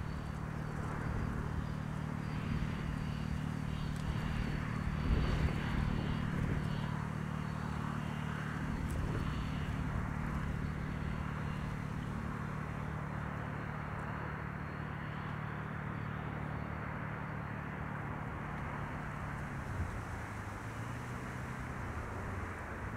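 A steady, low-pitched engine drone in open air, its pitch dropping a little near the end.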